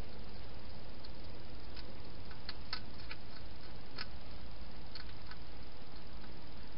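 Wild hedgehog feeding at a bowl: small irregular clicks and crunches of chewing, over a steady hiss.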